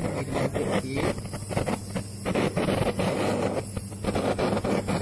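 Handheld gas kitchen torch burning with a steady rushing flame that flickers unevenly, melting grated mozzarella on bread, with a low steady hum underneath.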